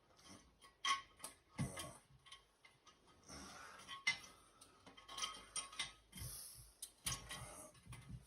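Irregular clinks, knocks and scrapes as a porcelain toilet tank with its mounting bolts is handled and set onto the bowl.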